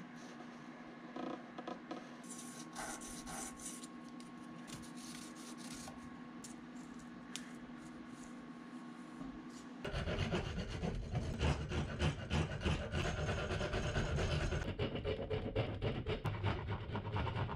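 Faint pencil scratching on an ash paddle blank. About ten seconds in, a run of louder, rapid rasping strokes starts as a hand edge tool shaves the blade's bevels down toward the thickness line.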